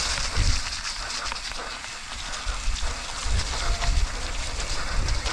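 Mountain bike riding down a wet trail on an action camera: wind rushing over the microphone with a hiss from the tyres, and an uneven deep rumble of knocks as the bike goes over rough ground.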